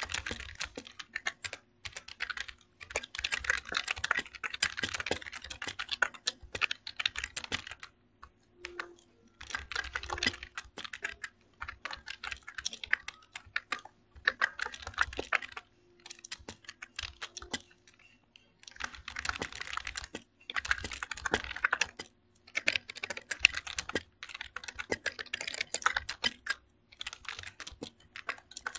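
Typing on a computer keyboard: runs of rapid keystrokes broken by short pauses, over a faint steady hum.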